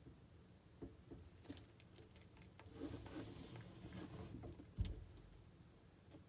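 Bearded dragon chewing salad: faint crisp clicks and crackles, then one dull thump just before five seconds in.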